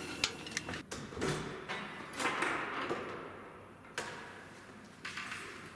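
Scattered knocks and rustling, then, about four seconds in, one sharp metallic click of a steel door's latch, followed by faint handling noise.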